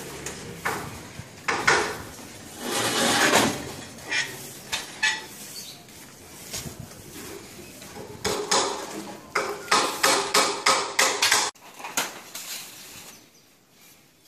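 Hand tools knocking and clinking irregularly during plastering work, with a quick run of strikes about eight to eleven seconds in. The sound drops suddenly to fewer, fainter knocks near the end.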